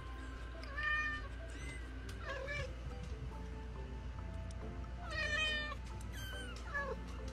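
Young kittens mewing: about five short, high-pitched cries, each bending in pitch.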